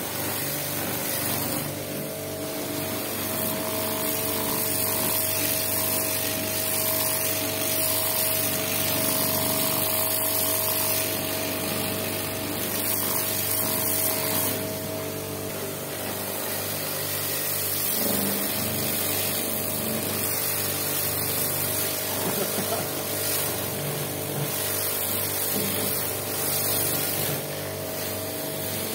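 High-pressure washer running steadily: a water jet hissing against the stainless steel plates of a plate heat exchanger, with the washer pump's hum underneath.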